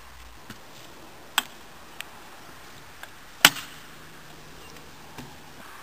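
Kick scooter clacking on a concrete skatepark box: about half a dozen sharp knocks of metal wheels and deck on concrete, the loudest about three and a half seconds in.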